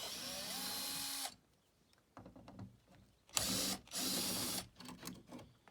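Cordless drill-driver spinning in two short runs, the first one's pitch rising as it speeds up, backing out screws from a Jeep door.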